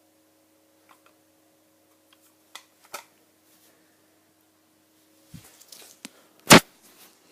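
Scattered clicks and handling noises over a faint steady hum. The hum stops a little past five seconds in, a cluster of clicks and rustling follows, and one loud sharp click comes about six and a half seconds in.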